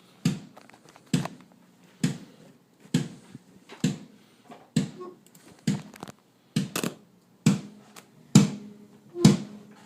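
Kick drum of a drum kit played on its own, struck slow and steady about once every 0.9 seconds, each hit ringing briefly, as a sound-check level test.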